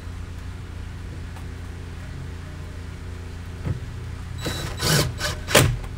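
Cordless drill-driver spinning in short bursts, three quick runs in the second half, driving a screw into the bottom edge of a car door panel.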